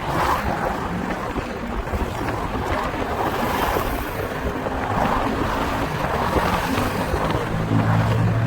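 City street traffic: a steady wash of tyre and engine noise that swells as cars pass. Near the end, the low hum of a nearby vehicle's engine comes in.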